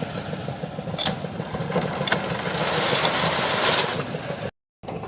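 Construction machinery running steadily during a concrete pour, with a fast rumbling engine sound and a few metallic clinks about one and two seconds in. The sound cuts out completely for a moment near the end.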